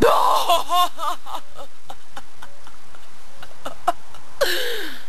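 A young woman laughing, in a loud burst at the start that runs about a second and a half, with a second short laugh near the end.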